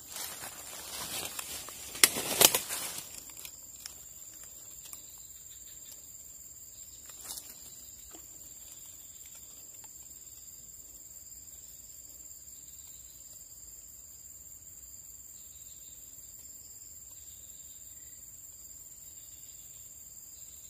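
Insects chirping in a steady high continuous tone. Near the start there are a few seconds of rustling with two sharp clicks about half a second apart, the loudest sounds here, and a small knock a few seconds later.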